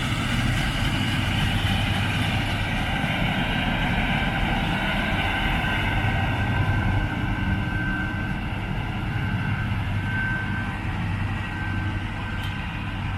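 Combine harvester running steadily: a constant low engine drone with a steady higher whine over it.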